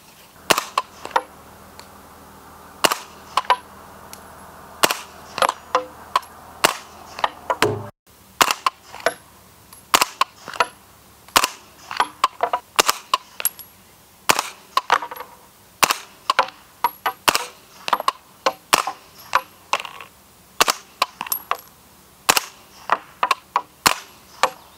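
Integrally suppressed 9mm carbine, a Spikes Tactical Brown Recluse, fired in quick strings: many sharp, muffled reports, often several a second.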